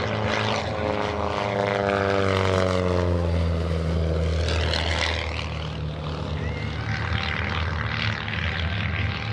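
Pitts aerobatic biplane's piston engine and propeller during an aerobatic pass. The engine note falls in pitch over the first three seconds, then settles into a steady drone.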